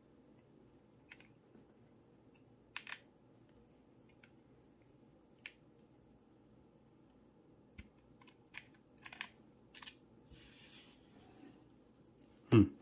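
Small metallic clicks and ticks of a hex key turning the small bolts that clamp a pistol compensator onto the slide, spaced irregularly, with one much louder knock near the end.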